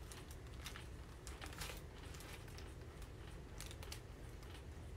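Paper burger wrapper crinkling in the hands, with faint chewing and biting, in irregular short crisp rustles.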